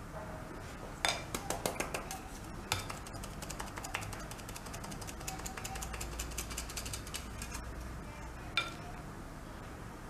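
Hand-operated stainless-steel flour sifter clicking and ratcheting as it is worked, sifting a flour and cocoa mix into a bowl. A quick run of sharp clicks about a second in, then sparser, fainter clicks, with one sharper click near the end.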